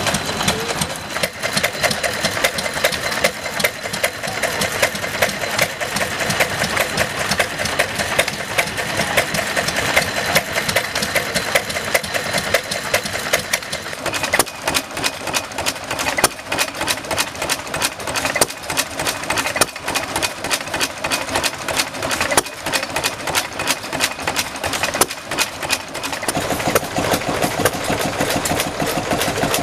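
Vintage stationary engines running one after another. First a vertical engine with twin spoked flywheels runs with a fast, even clatter. At about 14 seconds it changes to another engine with sharper, more evenly spaced beats, and near the end a Petter engine comes in with a fuller, lower sound.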